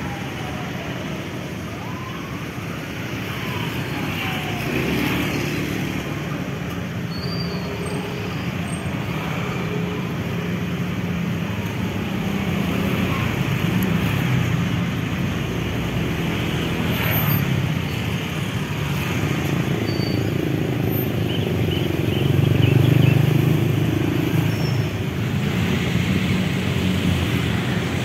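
Steady road traffic of cars and motorbikes passing close by, engine pitches sliding up and down as vehicles go past. It grows louder about five seconds in and is loudest at about 23 seconds.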